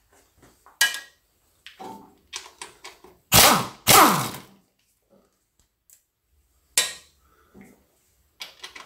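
Small impact wrench run in two short bursts about three and a half seconds in, each winding down in pitch as it stops, loosening the transmission oil pan bolts. Scattered light metallic clicks and clinks come before and after.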